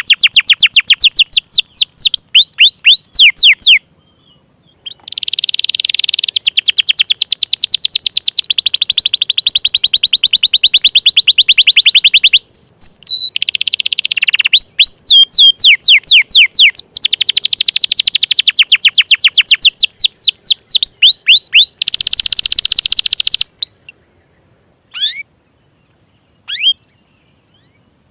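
Domestic canary singing in long, fast trills of repeated high notes that sweep downward. The song breaks off briefly about four seconds in and stops a few seconds before the end, leaving only a couple of short single notes.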